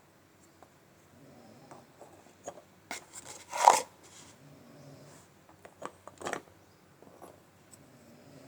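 Crisp crunches and crackles of dry multani mitti (Fuller's earth clay) being bitten and chewed. There are a few small clicks, then the loudest crunch about three and a half seconds in, and another short burst of crunching around six seconds in.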